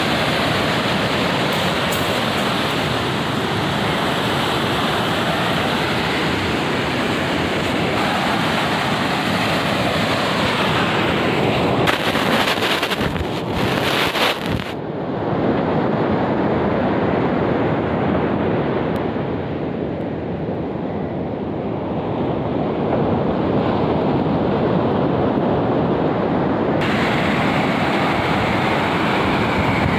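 Sea surf breaking and washing up a sandy beach, with wind buffeting the microphone. A few sharp knocks come about twelve to fourteen seconds in, and the sound turns duller for a stretch after that.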